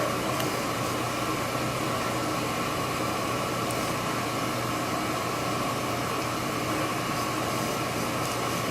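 Steady, even hiss with a faint low hum: courtroom background noise with no speech.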